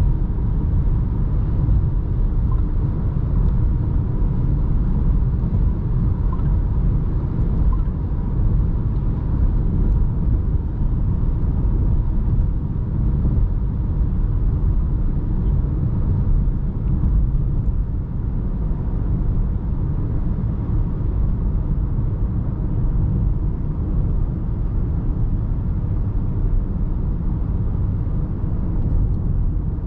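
2020 Volkswagen Jetta 1.4 TSI, a turbocharged inline-four with an 8-speed automatic, being driven at a steady pace: a constant low rumble of engine and road noise heard from inside the cabin.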